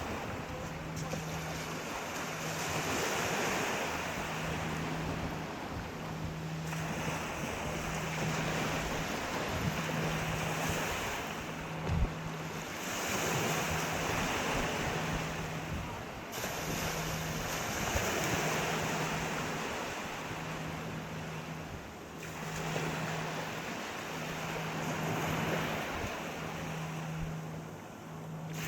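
Sea waves washing onto the shore, each wash swelling and fading every few seconds. A low hum pulses on and off underneath, and there is one short thud about twelve seconds in.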